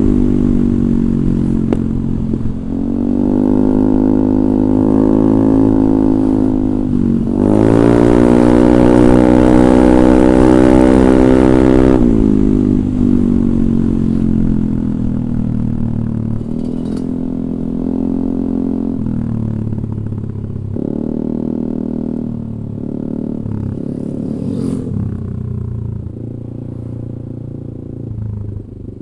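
Yamaha Aerox 155's single-cylinder four-stroke engine running through a DSM Cobra racing exhaust with a 38 mm inlet, being revved: the pitch rises and falls, is held high for several seconds about a third of the way in, then drops suddenly and the engine runs lower and unevenly.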